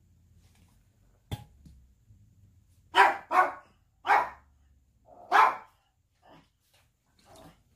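A dog barking: four loud, short barks from about three seconds in, followed by a couple of fainter ones. A single sharp click comes about a second in.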